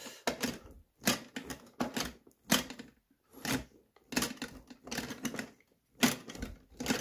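Wooden spoon stirring sticky, well-fermented cheonggukjang soybeans, the beans clicking and scraping in short irregular strokes about one or two a second. The stirring draws out the sticky threads that show a good ferment.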